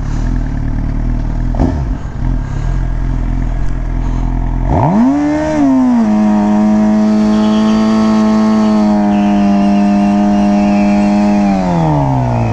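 Sport bike engine doing a burnout: running low at first, then revved sharply about five seconds in and held at a steady high pitch for about five seconds while the rear tire spins, then dropping back toward idle near the end.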